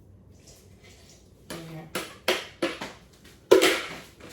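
Kitchen clatter: a quick run of knocks and clunks of utensils, jug and bowl against each other and the worktop, the loudest clunk about three and a half seconds in.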